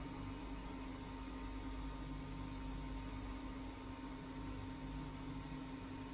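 A steady low hum under a faint, even hiss.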